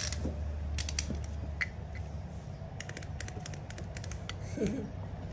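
Clockwork of a wind-up toy chick clicking as it is wound and set going: a scatter of sharp, irregular clicks.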